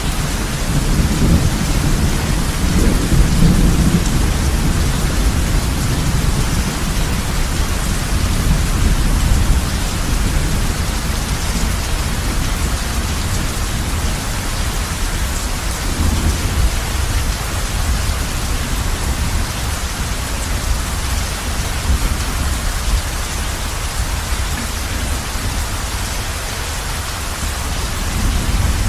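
Heavy rain falling on a roof, a steady hiss, with a low rumble of thunder rolling through in the first few seconds and briefly again about midway.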